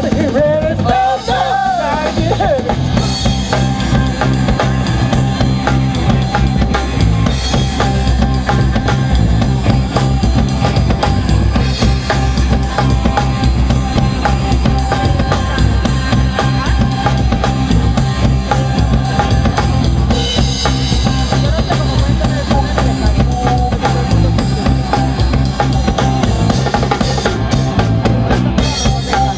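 Live rock band playing an instrumental stretch, with the drum kit keeping a steady beat over the bass.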